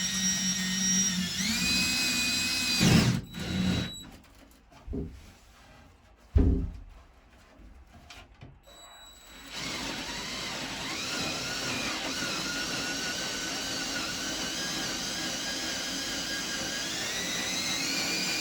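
Power drill with a large hole saw spinning up with a rising whine and running for about three seconds, then stopping. A few knocks follow, the loudest around six seconds in. The drill starts again about ten seconds in and runs steadily, its pitch rising near the end.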